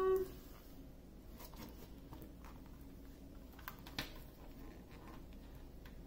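Faint rustling and light ticks of a soft tape measure and plastic-covered paper canvas being handled and smoothed, with one sharper tick about four seconds in.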